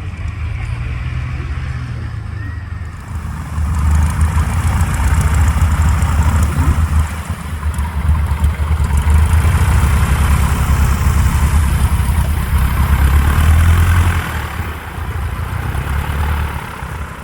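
Propeller aircraft's piston engine running with a deep, fast-pulsing drone, getting louder about four seconds in and easing off near the end.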